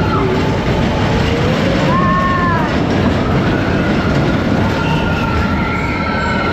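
Expedition Everest roller-coaster train running along its track: a steady loud rumble of wheels and rushing air, with a short rising-and-falling tone about two seconds in.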